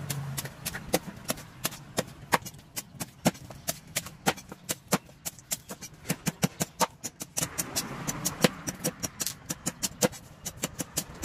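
Machete chopping the husk of a young green coconut against a wooden block: quick, sharp chops, about three a second, with brief pauses as the coconut is turned.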